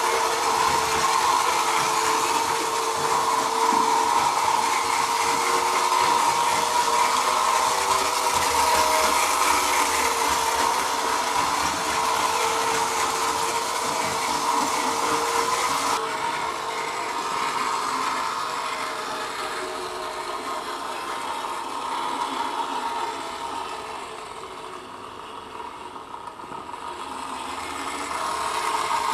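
Märklin gauge 1 BR 80 model steam locomotive running round its track, its motor and wheels whirring steadily. The sound fades in the later part as the train moves off, then grows louder again near the end as it comes back.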